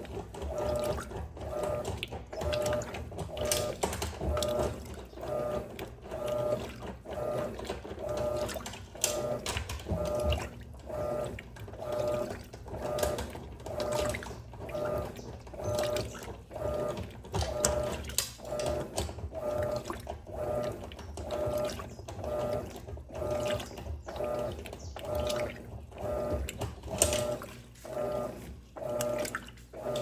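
Electrolux Turbo Economia 8.5 kg (LAC09) top-loading washing machine agitating a load in water: a rhythmic slosh and swish of the agitator about once a second.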